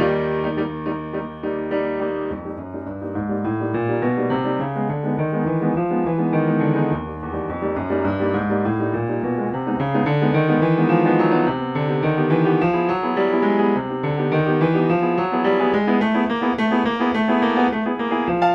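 Piano accompaniment playing a lively run of quick notes, the kind of score laid over a silent film.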